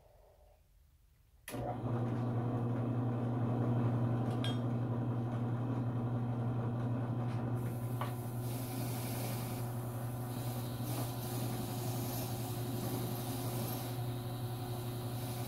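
An electric motor is switched on about a second and a half in and runs steadily with a low hum. A higher hissing scrape joins about halfway through, typical of a tool working against the metal of the wrench during rust clean-up.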